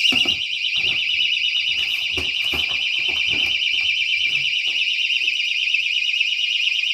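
Personal alarm sounding a high, fast-warbling electronic tone, shut inside an empty plastic bucket; it drops a little in loudness as the snap-on lid goes on at the start, with knocks and scrapes from handling the lid.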